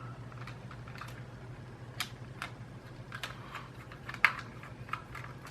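Small screwdriver undoing the screws of a PS4 controller's plastic back shell: irregular light clicks and ticks of the tool and screws against the plastic, the sharpest about four seconds in, over a steady low hum.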